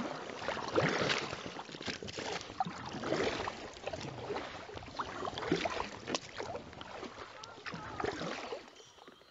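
Double-bladed kayak paddle dipping into and pulling through calm lake water, with irregular splashes and drips from the blades. The paddling quiets near the end.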